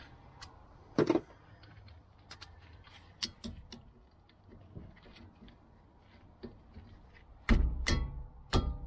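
Metal hand tools clinking as a ratchet and 13 mm socket are worked on the brake caliper bolts: scattered small clicks, one sharp click about a second in, and a louder run of rattling clicks near the end.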